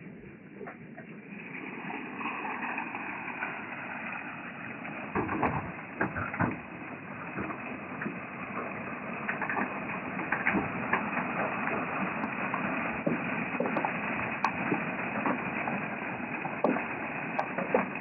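Water rushing and splashing through a highbanker's spray bar and hopper as it washes gravel. The wash grows louder about a second and a half in, and gravel and small stones clatter on the classifier screen in irregular knocks.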